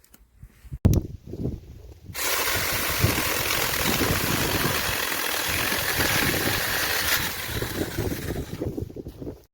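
Small 6-inch cordless mini chainsaw starting about two seconds in and running for several seconds as a loud, even rush of noise, tapering off near the end.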